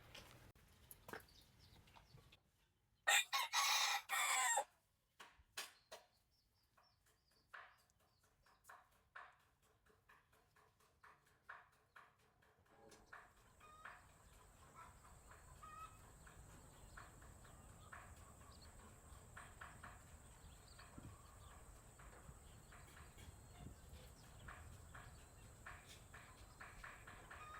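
A rooster crowing once, loud, about three seconds in, followed by scattered soft clucks and clicks of chickens. A steady high-pitched hum comes in about halfway through.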